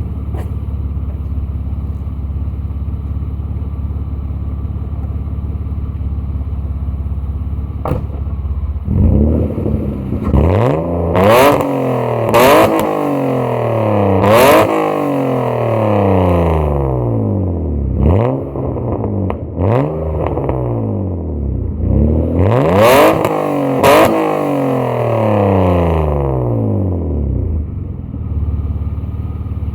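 BMW E36 328i's 2.8-litre straight-six, through a custom exhaust with a Toyo muffler, idling steadily, then revved in a series of quick throttle blips about nine seconds in, the pitch rising and falling with each blip. It settles back to idle and is blipped a few more times past the twenty-second mark before returning to idle.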